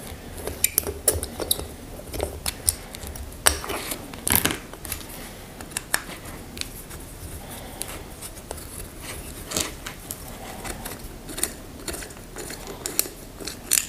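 Irregular small metallic clicks and clinks of hand tools and metal parts being handled at the filter housing of an LPG gas reducer.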